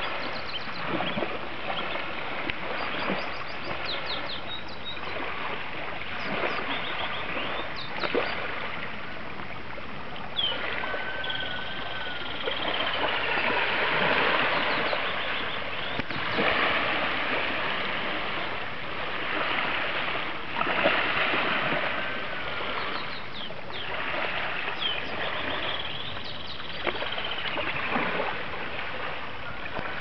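Small lake waves lapping and splashing against a reedy, flooded shoreline, a steady wash that swells and eases every few seconds. Birds call now and then over it with short whistled notes and chatters.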